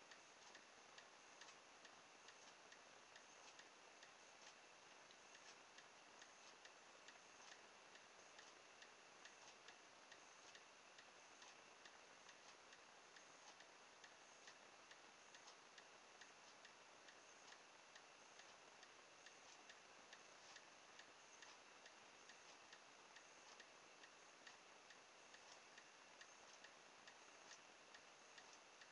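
Near silence with faint, steady, evenly spaced ticking throughout.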